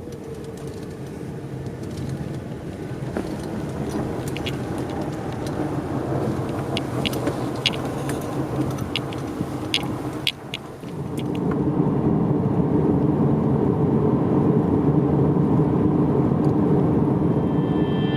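Subaru Crosstrek driving on a dirt road: steady engine and tyre noise with scattered sharp clicks, like gravel ticking, during the first half. It gets louder about eleven seconds in.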